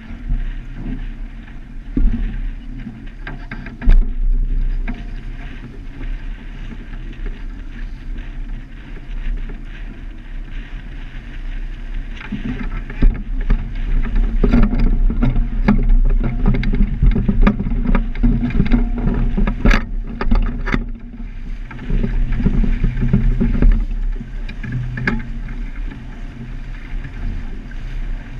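Wind buffeting the camera microphone and water rushing along the hull of a heeled sailboat under sail. Partway through comes a run of sharp clicks and knocks as a crewman works a sheet winch.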